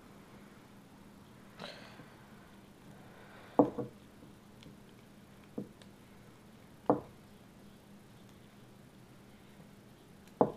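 Handling noise as a slingshot and its rubber tube bands are worked by hand: about five scattered knocks and taps, the loudest a double knock about three and a half seconds in.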